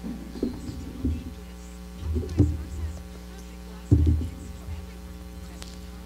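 Several dull bumps and knocks of books and papers being handled and set down on a lectern, picked up close by the lectern microphone, the strongest about two and a half and four seconds in, over a steady electrical mains hum.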